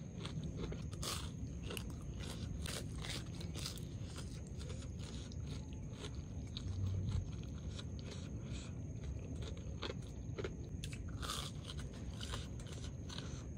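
Someone biting into and chewing a crunchy breadcrumb-coated fried saba banana: an irregular run of crisp crunches close to the microphone.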